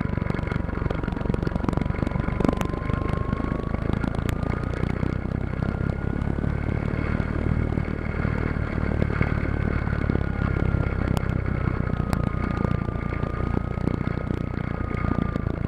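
Radio-controlled plane's motor and propeller heard from on board in flight: a steady whine that rises in pitch a few seconds in and slowly eases back down, over heavy wind rush and rumble on the microphone.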